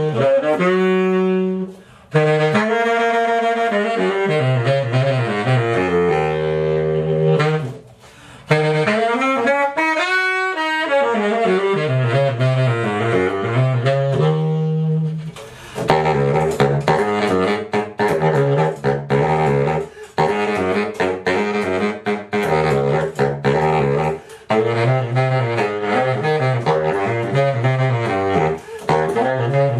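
Baritone saxophone played solo, a melodic jazz line with short pauses for breath, dipping to low notes in the first half and moving into quicker runs in the second half.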